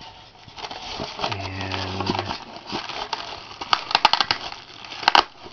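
Packaging and accessories being handled out of a box: continual rustling of plastic and cardboard, with a cluster of sharp clicks and rattles around four seconds in and again near the end, like small packed parts knocking together.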